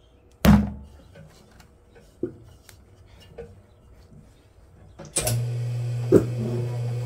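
A ball of clay slapped down onto a pottery wheel head with one loud thud, then patted a few times by hand. About five seconds in, the electric wheel's motor switches on and runs with a steady hum.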